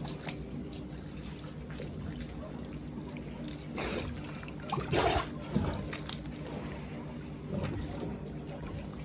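Water sloshing and splashing around a camera held at or under the water surface, over a steady low hum. Louder splashes come about four and five seconds in.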